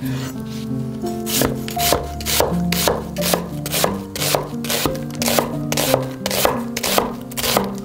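Chef's knife slicing half an onion into thin strips on a wooden cutting board: a steady run of cuts, about three a second, each stroke knocking on the board.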